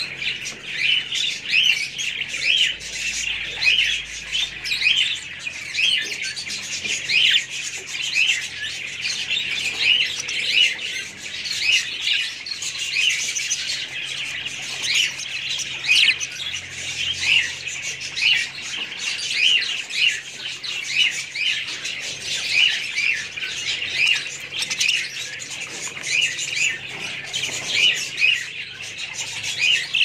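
A colony of budgerigars chattering, many short high chirps and calls overlapping without a break.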